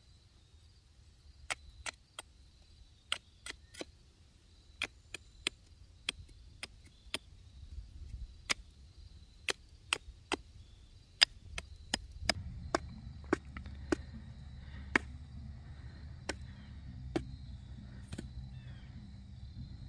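A knife chopping the end of a green sapling stake to a point: a string of sharp, irregular chops, sometimes about two a second, ending shortly before the end. A low rumble sets in underneath about halfway through.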